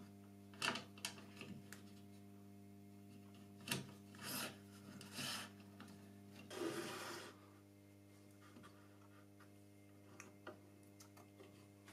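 Wooden end-stop block sliding along an aluminium fence rail in a series of short scrapes, with a few light clicks near the end as its locking knob is handled. A faint steady hum runs underneath.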